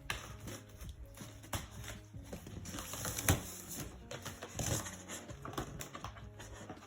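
Cardboard packaging being worked off an air fryer: scattered rustles, scrapes and knocks, with one sharper knock about three seconds in.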